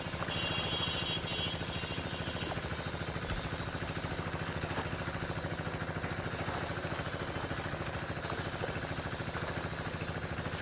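A small engine running steadily at idle with a rapid, even beat.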